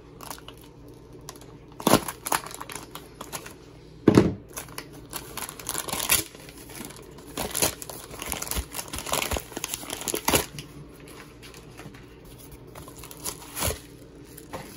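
Plastic poly mailer bag crinkling and rustling as it is handled, in irregular louder crackles with quieter gaps between.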